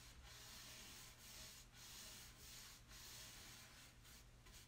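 Faint, repeated scrubbing of a lightly misted wax brush's bristles worked back and forth over painted furniture, blending wet chalk mineral paint, at about two strokes a second.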